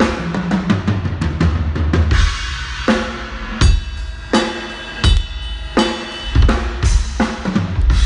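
Drum kit being played: a quick run of drum hits, then from about two seconds in a steady beat of kick and snare under ringing cymbals.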